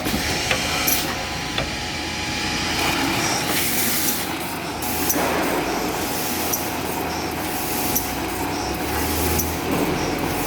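Gur-is BSF1200 bottom seal bag-making machine running, a steady mechanical noise with sharp clicks and short bursts of hiss recurring about once a second.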